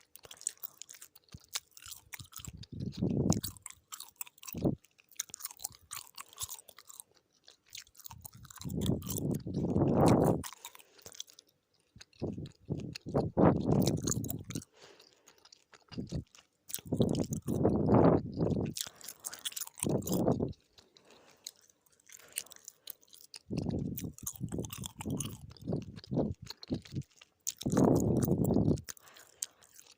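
Chewing gum close to the microphone: repeated mouth clicks and chewing in spells a second or two long, separated by short quieter pauses.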